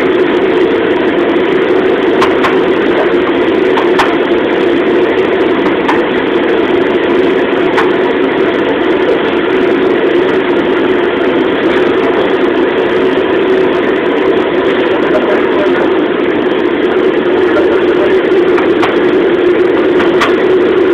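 Restaurant gas wok burner running at high flame under a bare carbon steel wok, with a loud, steady rush that does not change, and a few faint clicks. The wok is being heated until the metal turns blue, the first stage of seasoning it.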